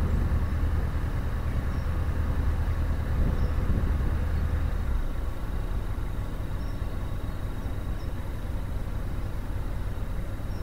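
Narrowboat engine running steadily as the boat cruises along the canal; its deep hum weakens about halfway through.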